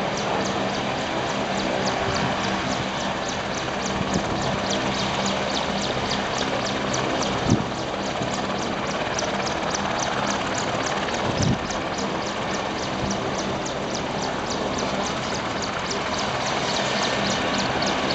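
AgustaWestland AW101 Merlin helicopter running on the ground: a steady turbine-and-rotor noise with a constant hum and fine, regular beating, broken by two brief knocks about a third and two thirds of the way through.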